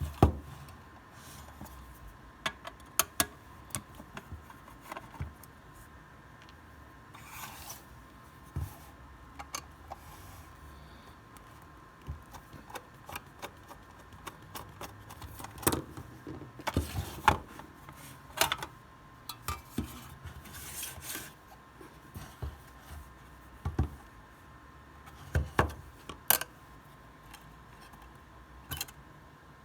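Hands handling small hard parts, giving irregular clicks, taps and short scraping rubs, over a faint steady high tone.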